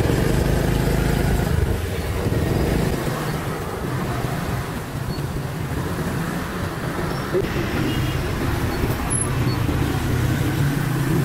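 Motorcycle engine running while riding through dense city traffic on a wet road, with the surrounding cars and other vehicles mixed in.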